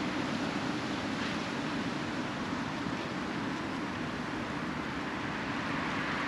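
Steady hum and hiss of distant road traffic, with no distinct events standing out.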